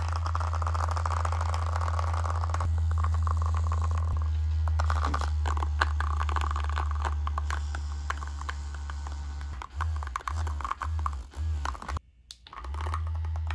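Personal massager wand's vibration motor running with a steady low buzz while a microcentrifuge tube in a cardboard cup on its head is shaken, rattling, as a makeshift vortex mixer. Near the end the buzz pulses on and off in quick bursts, cuts out briefly, then starts again.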